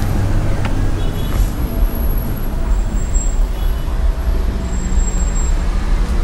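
City street traffic: a steady low rumble of cars and buses passing.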